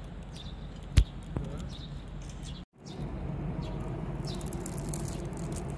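Outdoor ambience: a steady murmur of background noise with short, high bird chirps scattered through it. There is one sharp knock about a second in, and the sound cuts out for a moment near the middle.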